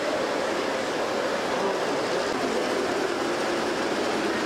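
G-scale model trains running on the layout's track, a steady, unbroken running noise with no pauses.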